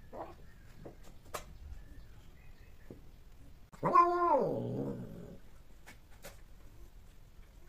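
Long-haired cat in heat giving one drawn-out yowl about four seconds in, rising quickly and then sliding down in pitch as it fades, with a few faint clicks before and after.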